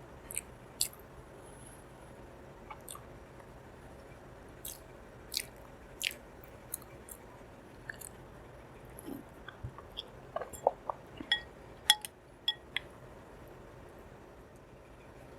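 Close-miked chewing of soft Indian sweets: irregular wet mouth clicks and smacks, bunching up about two-thirds of the way through, then easing off near the end.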